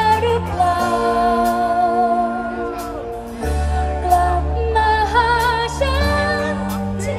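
Live band music with singing: the voice holds long notes, some wavering with vibrato, over sustained bass and chords.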